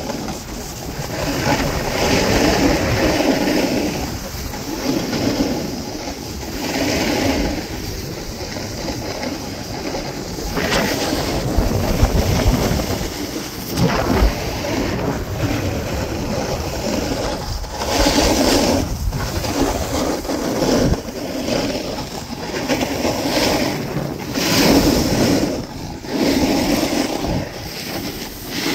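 Skis scraping and carving over packed snow, with wind rushing on the microphone; the hiss swells and fades every few seconds as the skier turns.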